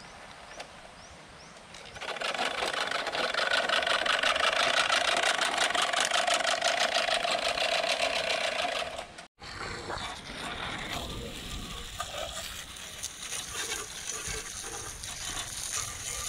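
Manual push reel lawn mower rolling over grass, its spinning reel blades making a fast, steady clicking whir from about two seconds in. It cuts off abruptly about nine seconds in, followed by a quieter hiss of a garden hose spray nozzle spraying water onto the mower.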